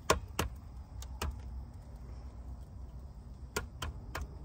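A few light clicks and knocks as bread slices and small kitchen items are handled on a wooden cutting board, two near the start, two a little after a second in and three near the end, over a low steady hum.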